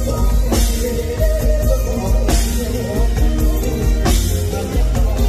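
Live band music with a male singer singing into a microphone over drum kit, bass and guitar, a bright cymbal hit coming about every two seconds.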